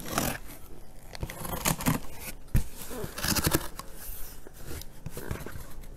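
Box cutter slicing through packing tape on a cardboard box in several short, irregular strokes.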